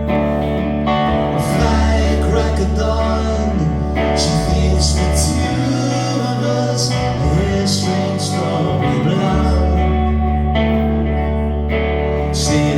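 Live band playing a song's instrumental intro: guitar chords over a held bass line that shifts note a few times, with a handful of short, sharp hits.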